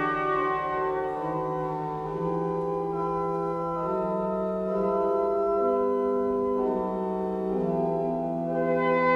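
18th-century church pipe organ playing slow, sustained chords that change about every second, with no trumpet playing.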